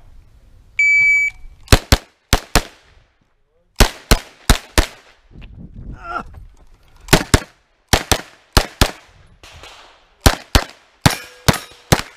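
An electronic shot timer beeps once, a steady high tone about half a second long. Then a Norinco 320 semi-automatic Uzi-clone carbine fires about twenty shots, mostly in quick pairs, with short pauses between groups of shots.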